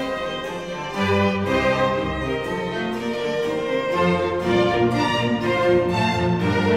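Instrumental music with a violin playing the melody over lower sustained accompaniment notes.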